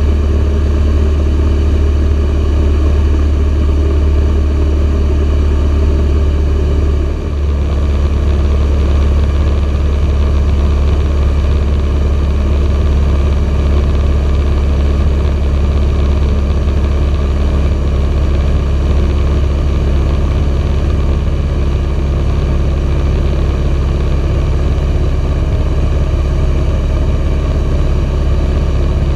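Socata TB9 Tampico light aircraft's four-cylinder piston engine and propeller droning steadily, heard from inside the cockpit during the descent toward circuit height. The level dips briefly about seven seconds in.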